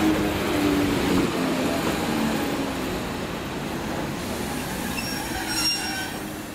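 BDZ class 32 electric multiple unit slowing to a stop at the platform: a whine falling in pitch as it decelerates over the first two seconds, then a short high-pitched brake squeal about five and a half seconds in.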